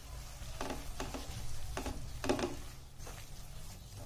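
Black spatula stirring and scraping a thick ground spice mix through oil in a stainless steel pan, in about five short strokes.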